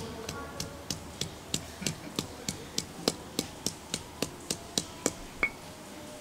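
Stone pestle striking and grinding red curly chilies in a stone mortar (cobek and ulekan): sharp, regular taps about three a second that stop about five and a half seconds in.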